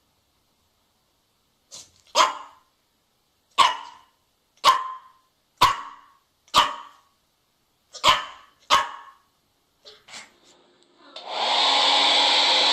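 A dog barking sharply, about seven single barks roughly a second apart, then a hair dryer switching on near the end and blowing steadily.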